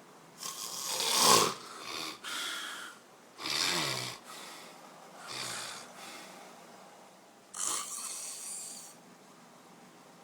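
A large man snoring loudly in his sleep: about five rough snoring breaths, the loudest about a second in, then shorter ones spaced a second or two apart.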